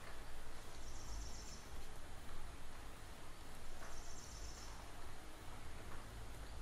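Faint high-pitched insect-like trill, heard twice about three seconds apart and lasting under a second each time, over a steady low background hum.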